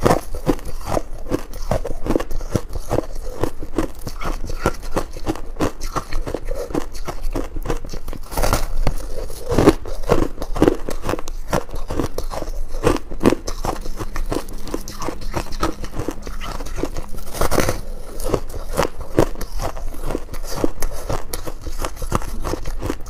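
Frost ice with buckwheat being bitten and chewed: a dense run of rapid crunching and crackling, with a few louder crunches, one about two-thirds of the way through.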